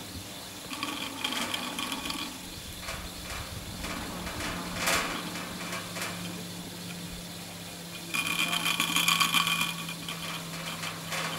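Haul rope of a 1959 Doppelmayr short-bar surface lift running over a tower's sheave trains with a steady hum. A rattling clatter comes as the hangers' rope clamps pass over the rollers, once a second in and loudest about eight to ten seconds in.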